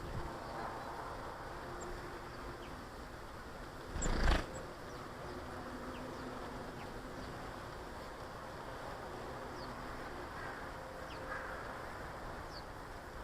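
Outdoor garden ambience: faint, short, high chirps of small birds scattered throughout over a steady low hum and background noise, with one brief loud thump about four seconds in.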